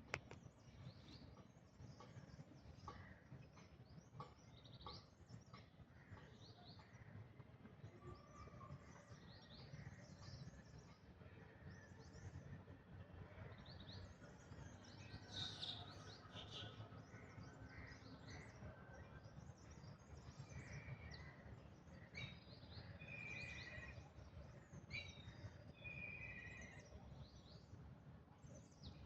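Faint outdoor ambience: scattered short bird chirps and calls over a low steady background rumble.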